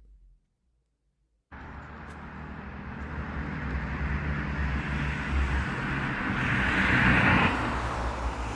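Near silence, then about a second and a half in a loud outdoor rush of noise with a low rumble starts abruptly and keeps growing louder, like traffic or wind on a phone microphone.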